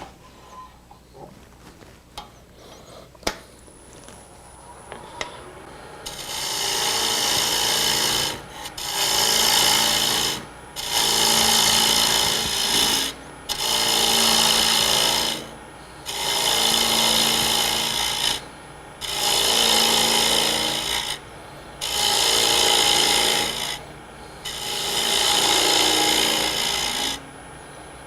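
A few light clicks and knocks in the first seconds. Then a turning tool cuts the spinning hard maple lid on a wood lathe in eight passes of about two seconds each, with short breaks between them, as the slope of the lid is turned toward the center.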